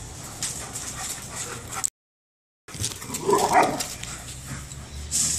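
A Bernese mountain dog and a Briard play-fighting, with a loud outburst of dog vocalising about three seconds in. The sound cuts out completely for under a second just before it.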